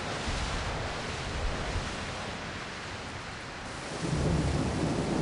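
Thunderstorm: a steady rush of wind and heavy rain, with a low rumble of thunder swelling about four seconds in.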